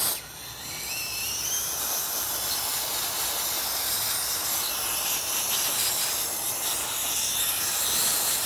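Compressed-air blow gun hissing steadily as it blows freshly cleaned Dellorto carburetor parts dry, starting with a sudden burst and carrying a faint wavering whistle about a second in.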